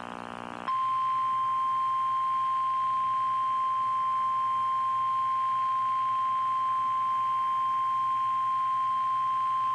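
NOAA Weather Radio warning alarm tone: a single steady 1050 Hz tone that starts a little under a second in, after a brief buzz. It signals that an urgent weather alert, here a tornado watch, is about to be broadcast.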